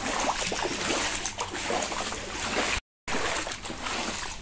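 Footsteps sloshing and splashing through shallow floodwater on a paved lane, an irregular watery noise with a brief dropout a little under three seconds in.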